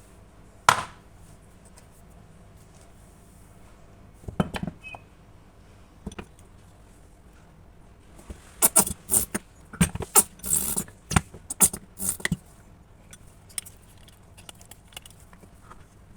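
Slime being poked, pressed and pulled by hand, with sticky clicks and wet snaps. One sharp snap comes just under a second in, a few more at about four and a half seconds, and a dense run of crackling pops follows from about eight to twelve seconds.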